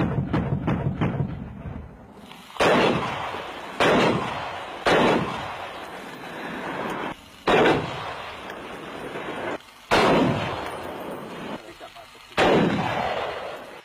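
Gunfire in a ballistic test on an armored car: the tail of a rapid automatic burst in the first second, then six single heavy shots spaced one to two and a half seconds apart, each ringing out in a long echo.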